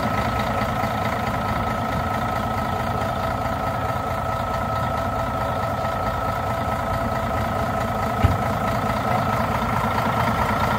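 Heavy diesel engine idling steadily, with a thin steady whine over the rumble and a single knock about eight seconds in.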